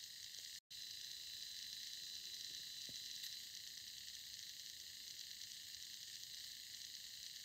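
Faint, steady hiss with a thin high whine: room tone and recording noise. It drops out completely for an instant under a second in.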